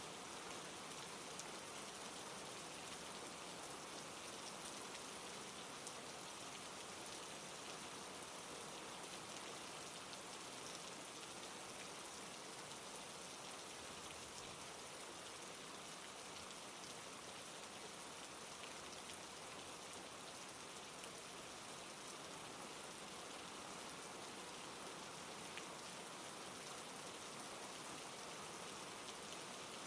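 Steady rain falling, a soft even hiss with faint scattered drop ticks.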